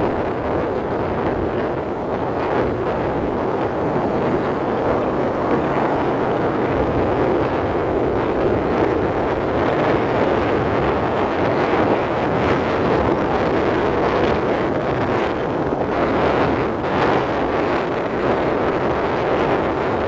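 Steady wind rush over the microphone of a vehicle moving along a road, with the vehicle's running noise underneath.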